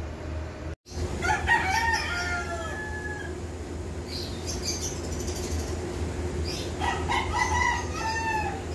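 A rooster crowing twice, each crow about two seconds long and falling in pitch at the end, over a steady low hum.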